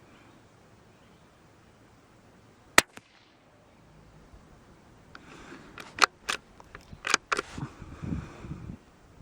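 A single .22 LR rifle shot from a bolt-action Brno/CZ about three seconds in: one sharp crack. A few seconds later comes a cluster of metallic clicks and knocks with sliding and rattling between them, which is the bolt being worked to eject the case and chamber the next round.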